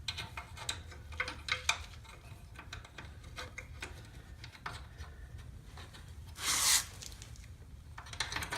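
Light clicks and rubbing of metal clamp parts being handled on the sprayer's pump, with one louder, short scrape about six and a half seconds in.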